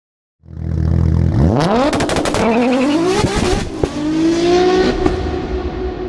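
An engine idles with a low rumble, then revs hard, its pitch rising twice, with sharp pops about two seconds in. It then holds a steady higher note that fades near the end.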